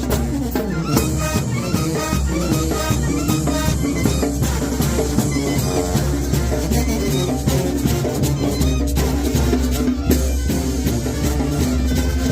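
Banda sinaloense brass band playing live: brass over steady drums and a deep bass line.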